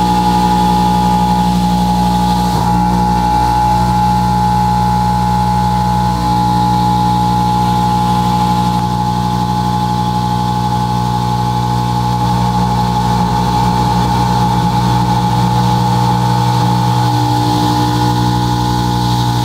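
Kennametal Mill 4-12 KT tangential milling cutter taking a steady cut in metal on a CNC mill. It makes a constant machining drone with a strong high whine that holds the same pitch throughout.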